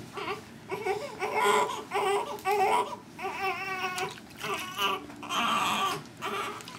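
Newborn baby crying while being bathed: a series of short, high-pitched wails, several with a wavering pitch.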